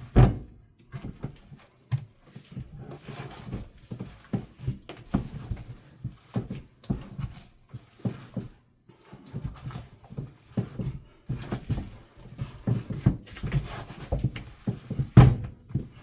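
Hands squishing and kneading a raw ground chicken and beef meatloaf mixture in a bowl, an irregular run of wet, squelchy strokes. There is a louder knock just after the start and another about a second before the end.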